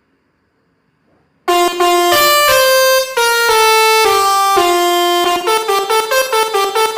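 Telolet musical bus air horn playing a loud tune of changing notes, starting about a second and a half in. Near the end it switches to quick repeated notes, about three a second.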